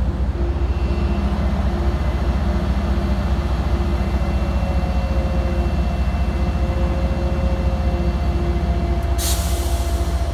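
MBTA HSP-46 diesel-electric locomotive running steadily at a standstill with its commuter coaches, a deep engine hum under a faint tone. About nine seconds in comes a short hiss of released air, typical of the brakes releasing before the train pulls out.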